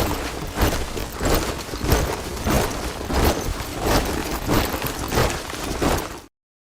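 A body of soldiers marching in step, boots striking the ground together about twice a second. It cuts off abruptly near the end.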